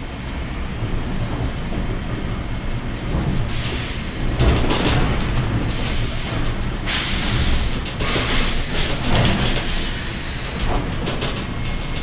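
Sawmill log infeed line running loudly: the sharp-chain conveyor and press rolls carrying a log, a dense steady machine rumble. Louder surges come about four and seven seconds in.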